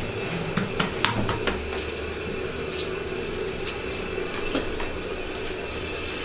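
Scattered sharp metallic clinks and taps of hand tools being handled inside a truck tire during a sidewall repair, several in quick succession in the first second or two, over a steady low hum.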